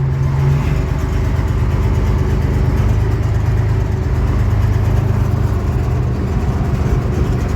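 Tractor engine running steadily at low revs while the tractor reverses.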